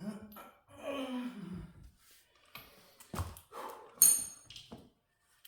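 A man's effortful grunt and a falling sigh, then knocks and a sharp metallic clank with a brief ringing about four seconds in, as heavy lathe parts are handled and set in place.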